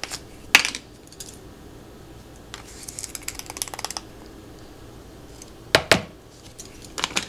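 Handling a plastic spice jar and metal measuring teaspoon: a sharp tap about half a second in, a scratchy rattle for about a second and a half around the middle as the jar is opened, then two sharp taps a little before the end as the plastic cap is set down, and a few light clicks at the very end.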